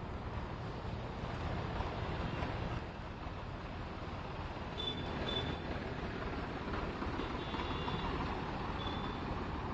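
Motor traffic on a flooded street: car and scooter engines running and tyres going through water, a steady rumble. A few short, faint high beeps come about halfway through and again near the end.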